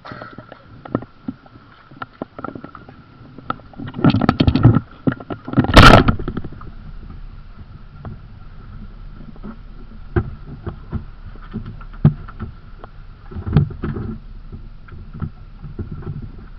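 Water sloshing and knocking against a small boat's hull, with scattered clicks and two loud rushes of splashing water about four and six seconds in.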